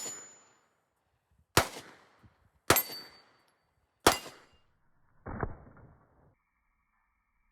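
Three 9mm pistol shots from a Sig Sauer P365 X Macro, sharp cracks about a second apart with a short echo after each, followed near the end by a duller, muffled bang.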